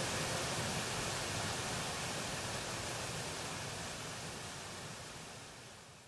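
Water rushing steadily over a small rocky cascade in a stream, fading out gradually toward the end.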